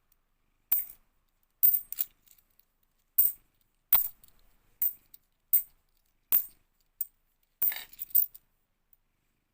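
50p coins clinking as they are set down one at a time, about a dozen short metallic clinks at an uneven pace, with a quick flurry of three near the end.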